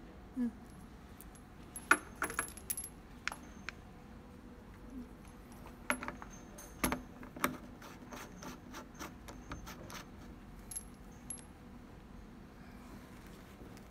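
Metal connectors and fittings of well-logging equipment being handled and plugged together: scattered sharp metallic clicks and clinks, in a burst about two seconds in and another about six seconds in, then a few lighter ticks.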